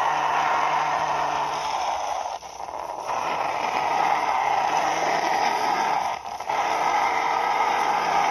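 Plastic toy excavator pushed by hand on its tracks along a concrete ledge, giving a steady whirring scrape that stops briefly twice as the pushing pauses.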